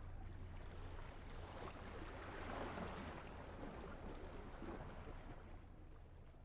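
Faint wash of gentle waves, swelling once about two and a half seconds in and then fading away near the end.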